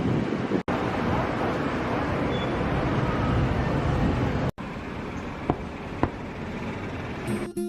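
Steady outdoor background noise, a rushing haze like passing traffic and wind, cut off abruptly twice, with two short ticks in the later part. Acoustic guitar music starts right at the end.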